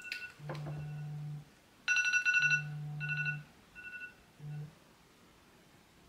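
Cell phone timer alarm going off: a run of short high electronic tones, the loudest about two seconds in, alternating with three stretches of a low buzz, then stopping about five seconds in.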